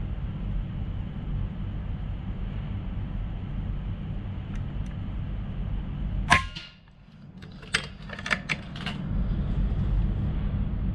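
Vulcan 3 PCP air rifle firing a single shot, a sharp crack about six seconds in, followed a second or two later by a few lighter clicks, over a steady low background rumble.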